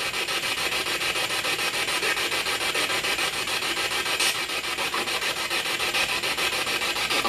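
Spirit box, a radio scanning rapidly through stations, playing through a small external speaker: a loud hiss of static chopped evenly many times a second.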